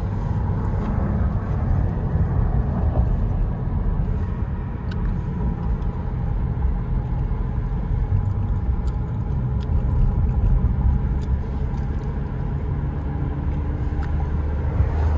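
Car driving over a rough track: a steady low engine and road rumble with a few faint sharp ticks.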